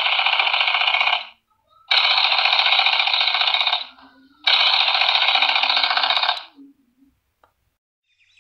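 An old-style telephone bell ringing in three bursts of about two seconds each, with short pauses between them, then falling silent near the end.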